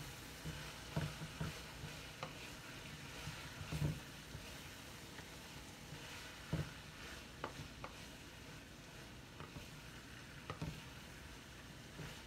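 Chicken, cabbage and carrots sizzling in a frying pan while being stirred, the utensil knocking against the pan at irregular moments.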